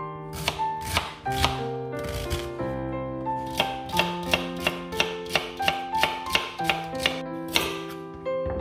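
Kitchen knife chopping onion, celery and carrot on a cutting board: a run of sharp knocks, about three a second, over background music.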